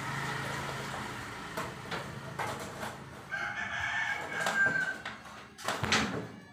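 A rooster crowing once in a long held call in the background, about three seconds in. A few sharp knocks come from the orange PVC sanitary pipe being handled and pushed into its elbow fitting; the loudest is near the end.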